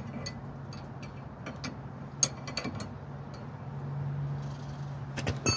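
Light metallic clicks from tools working at the wheel hub over a steady low hum, then near the end one loud metal clank from a slide hammer puller striking, ringing afterwards, as the front wheel hub and bearing are being pulled.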